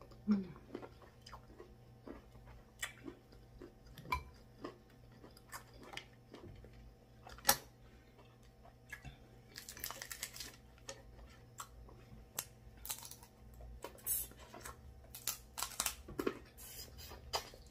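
Close-miked chewing, biting and crunching of seafood. It is broken by sharp cracks and crackly snaps as snow crab leg shells are pulled apart by hand, thickest about ten seconds in and again near the end.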